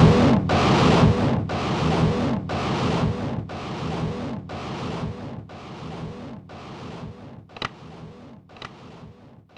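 Electronically processed whooshing noise pulsing about once a second, each pulse carrying a faint low hum, fading steadily away over about nine seconds.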